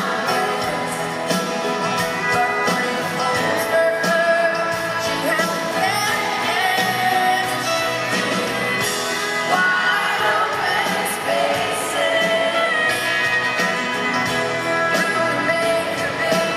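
Live country band playing through a concert sound system: a woman's lead vocal over acoustic guitar, electric bass, drums and banjo.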